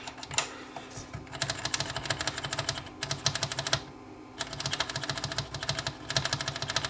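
The record/play slide switch of a NAD 6155 cassette deck being worked rapidly back and forth by its actuator rod, giving runs of quick clicks with a short pause about four seconds in, to clean the switch contacts.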